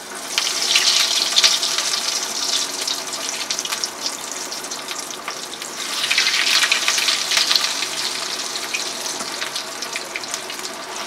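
Breadcrumb-coated egg rolls deep-frying in hot oil. The sizzle surges as the first roll goes in and eases, then surges again about six seconds in as the second roll is added, and settles to a steady crackling sizzle.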